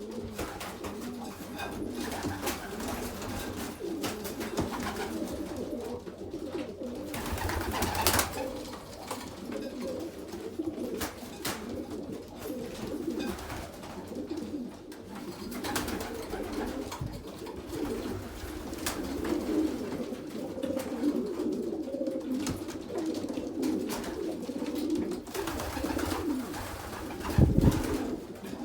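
Several domestic pigeons cooing together in a loft, a continuous overlapping murmur, with scattered clicks and knocks and a louder thump about eight seconds in and another near the end.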